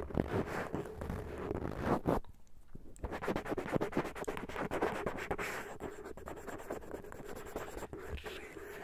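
Close-miked scratching and rapid crackly scraping from an ASMR ear-cleaning tool worked against the microphone, with a short pause a little over two seconds in.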